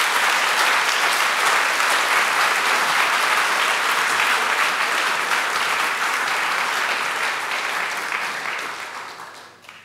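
Audience applauding at the end of a talk: steady clapping that dies away over the last couple of seconds.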